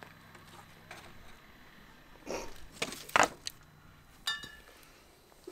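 A rustic woven-stick wattle gate being handled and pushed open, with two sudden knocks and rustles of the dry wooden sticks a little past two and three seconds in. A short, high squeak follows about four seconds in.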